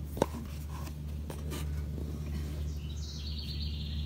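Phone camera knocking and scraping against the engine and clutch housing as it is worked into the gap: one sharp knock about a quarter second in, then light rubbing and small clicks, over a steady low hum. A faint high chirping comes in about three seconds in.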